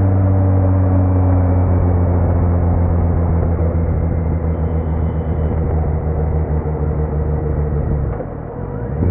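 Kawasaki Z900's inline-four engine running through a Leo Vince muffler with no dB killer, a steady low drone with the pitch easing down slightly. Near the end the sound drops away briefly, then the pitch climbs as the revs pick up again.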